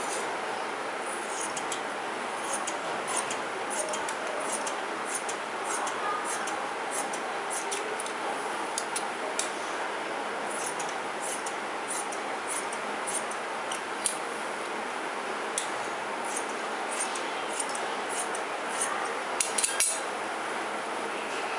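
Tailoring scissors snipping through dress fabric: a string of short, crisp clicks at irregular intervals over a steady background hiss, with a few louder clicks close together near the end.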